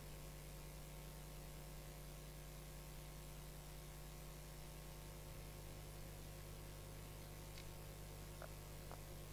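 Low, steady electrical mains hum from the church's microphone and sound system, with a few faint clicks near the end.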